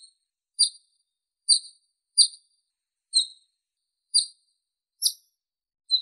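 Grey-necked bunting (Emberiza buchanani) giving short, high single notes, seven of them, about one a second with silence between.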